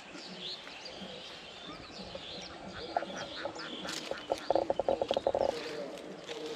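A duck quacking in a quick run of calls about four and a half seconds in, with a few shorter quacks before it, over small birds chirping.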